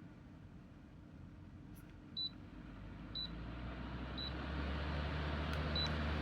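Dreo Lynx S table fan beeping four times, about a second apart, as its speed is stepped up; its rush of air and low motor hum rise and grow louder.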